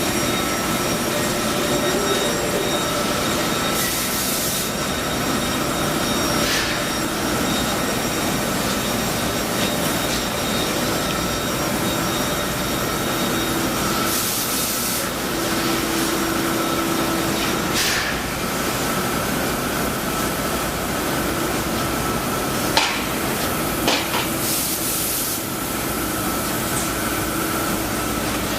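Trumpf L-3030 CO2 laser cutting machine running: a steady machine hum and hiss with a high steady tone, short bursts of sharper hiss about every ten seconds, and two brief clicks near the end.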